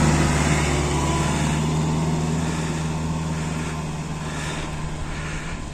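A GAZ Sobol 4x4 van's engine running steadily as it drives through deep snow, growing gradually fainter as it pulls away.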